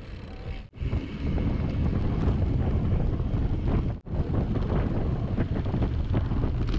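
Wind buffeting the microphone of a camera on a moving mountain bike: a steady, loud low rumble, broken twice by sudden brief gaps.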